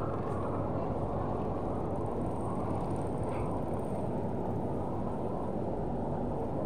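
Steady low rumble of outdoor street background noise, even throughout, with no distinct events.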